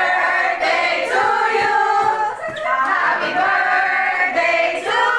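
A crowd, mostly women's voices, singing together in unison, with long held notes.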